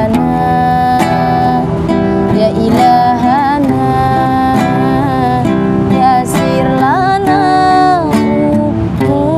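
A woman singing a sholawat (Islamic devotional song) in an ornamented, wavering melody, accompanied by a strummed acoustic guitar.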